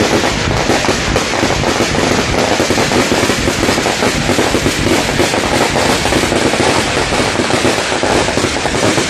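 Aerial fireworks going off in a rapid, unbroken barrage of bangs and crackles, many shells bursting each second.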